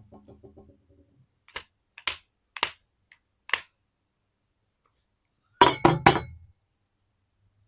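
Hard clicks and clinks of a glass perfume bottle and its packaging being handled: four single clicks, then three heavier knocks in quick succession about six seconds in.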